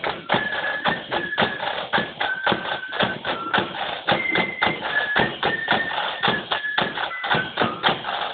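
Marching flute band playing a march: a high flute melody of short held notes over rapid side-drum strokes and bass-drum beats.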